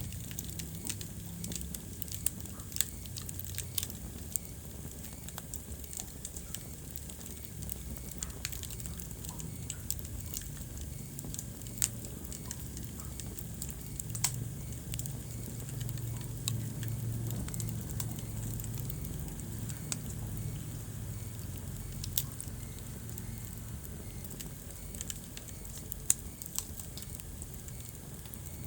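Wood fire crackling in a fireplace: irregular sharp pops and snaps, a few much louder than the rest, over a low steady rumble.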